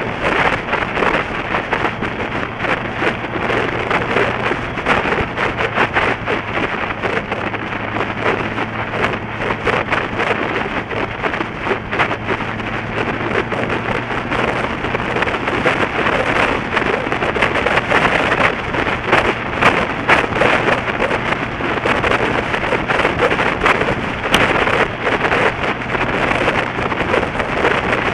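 Wind buffeting the microphone of a motorcycle-mounted camera at road speed, a steady loud rush. Under it runs a steady low engine drone that fades about halfway through.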